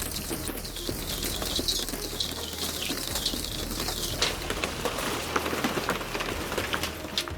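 Hail pelting down: a dense patter of hailstones striking hard surfaces, with many sharp clicks and louder individual hits, more of them in the second half.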